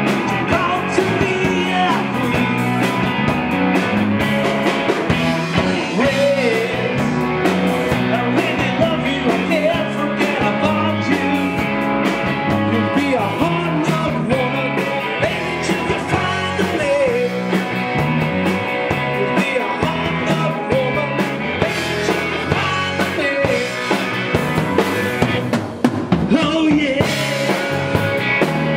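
Live rock band playing: electric guitar, electric bass and drum kit together in a steady groove, with a brief break near the end before the band comes back in.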